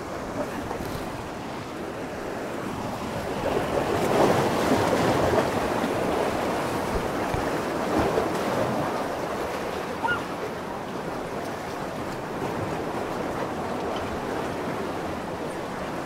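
Lake waves washing in, a steady rush of water that swells a few seconds in and again about halfway through, with wind on the microphone.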